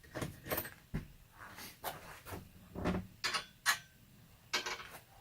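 Irregular metallic clinks and knocks, about a dozen, from chainsaw parts and tools being handled while the saw is taken apart.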